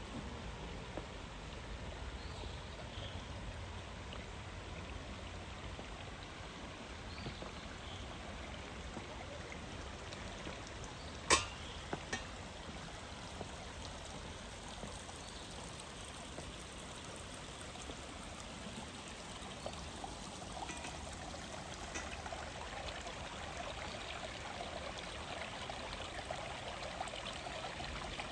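A stream flowing and trickling steadily, a little louder in the second half. A single sharp click about eleven seconds in, with a fainter one just after.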